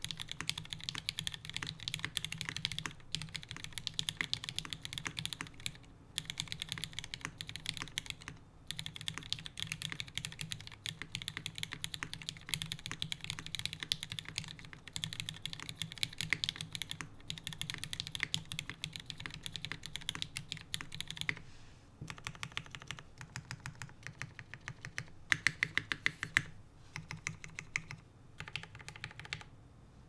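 Typing on a custom tenkeyless mechanical keyboard (Hiney TKL One, full aluminium plate, no foam) fitted with lubed, filmed Cherry MX Red Hyperglide linear switches and GMK keycaps. Fast, steady keystroke clacks with a few brief pauses. About two-thirds of the way in, the typing turns slower and more uneven, with a few louder strikes.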